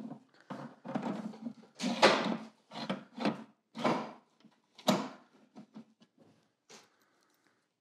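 The belt-sanding attachment of a Triton oscillating spindle and belt sander being slid down over the spindle and seated on the table by hand: a run of scrapes and knocks of hard plastic for about five seconds, with a sharp click near the end, then a few light ticks.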